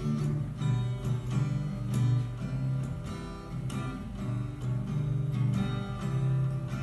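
Acoustic guitar strummed in a steady rhythm of chords, an instrumental passage between sung lines.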